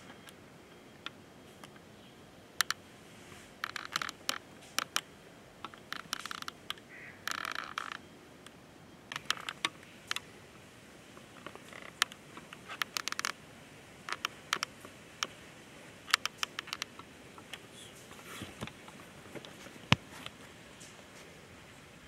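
Scattered sharp clicks and short scraping rattles, irregular and sometimes bunched in quick runs, over a faint steady background hiss.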